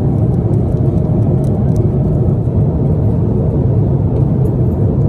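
Airbus A330-300 cabin noise in cruise flight: a steady low rumble of engines and airflow, unchanging.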